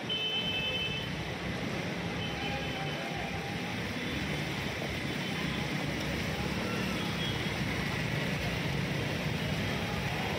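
Motor traffic moving through a waterlogged street: a steady wash of engine and water noise, with a few faint short high tones near the start.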